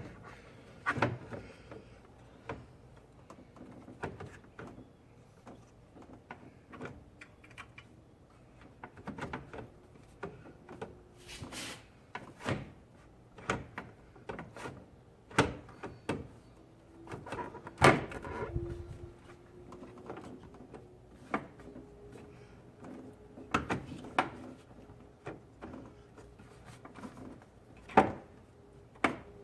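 Irregular knocks, clicks and rattles of hard plastic airbox and intake parts being handled and pushed into place during an airbox install, with one louder knock about two-thirds of the way through.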